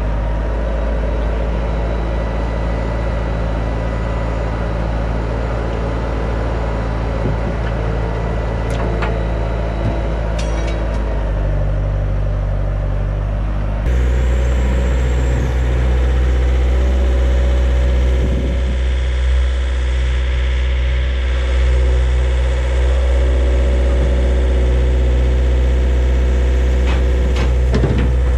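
Compact track loader's diesel engine running steadily at a constant speed. About halfway through, the engine note shifts abruptly to a stronger, deeper hum.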